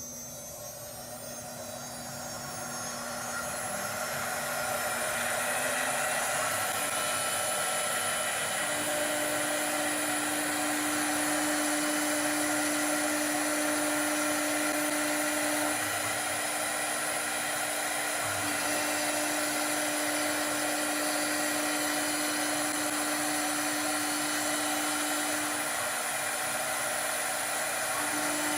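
Automatic CNC wood-turning lathe running. Its motors wind up over the first few seconds, then hold a steady whine over a dense hiss, stepping slightly in pitch a few times.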